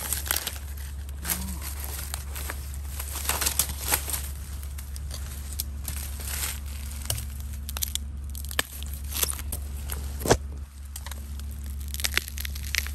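Footsteps crunching and crackling through thick dry bamboo and oak leaf litter, with irregular sharp snaps of dry twigs and leaves, over a steady low hum.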